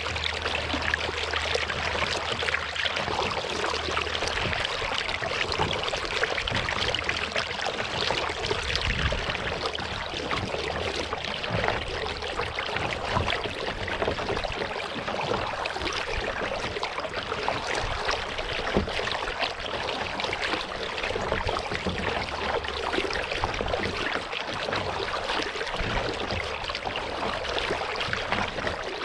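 Water trickling, dripping and lapping around a kayak on a lake, a steady dense crackle of small splashes. A faint low hum under it stops about twelve seconds in.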